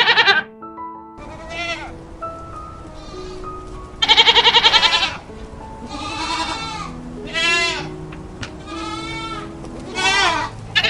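Goats bleating over background piano music: a string of calls, the loudest a long quavering bleat about four seconds in, with another loud one right at the start and one beginning at the very end.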